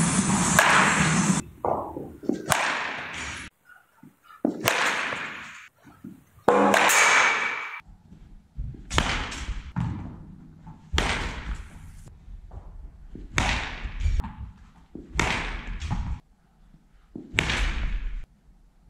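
Baseball bat striking balls off a batting tee, a sharp crack about every two seconds, each one ringing on in a large indoor hall.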